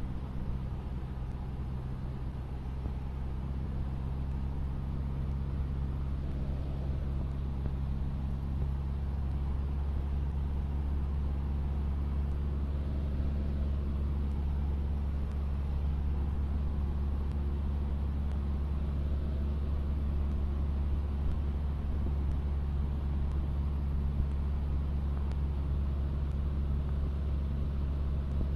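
Cessna 152's four-cylinder Lycoming O-235 engine and propeller running steadily, a deep, even drone heard from inside the cabin, growing slightly louder over the first few seconds.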